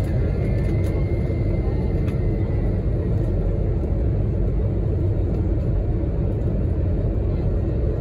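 Jet airliner cabin noise heard from a window seat by the wing: a steady low rumble of the engines as the plane moves along the runway, with a faint high whine over the first few seconds.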